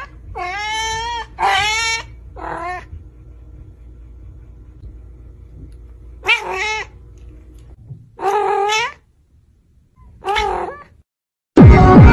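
A kitten meowing six times, each meow a short bending call. Three come in quick succession, then three more a couple of seconds apart, with a faint steady room hum between them. Loud electronic music starts just before the end.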